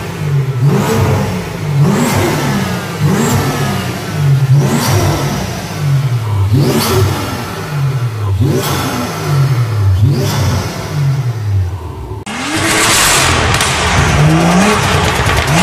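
BMW M2 F87's turbocharged 3.0-litre straight-six, on a full Fi Exhaust valved system with PP-Performance ECU tuning, revved in quick throttle blips, roughly one every second or two, with sharp cracks at the rev peaks. About twelve seconds in, the revving gives way to a loud, even rushing noise.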